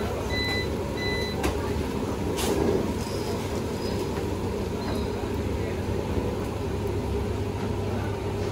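Two short electronic beeps in the first second and a half over a steady low hum, with a sharp click about two and a half seconds in.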